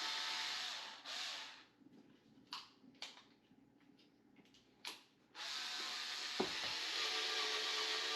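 Electric screwdriver with torque settings driving a toe-hook mounting screw into a OneWheel footpad: a steady mechanical running with ratcheting, stopping after about a second, a few sharp clicks during the pause, then running again from about five seconds in, with a thump about a second after it restarts.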